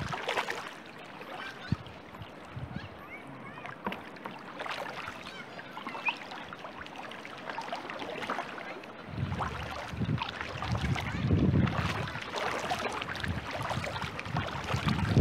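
Double-bladed kayak paddle strokes in slow river water: repeated splashes and drips as the blades dip and lift, with water washing along the hull. From about nine seconds in, a louder low rumble comes and goes in bursts.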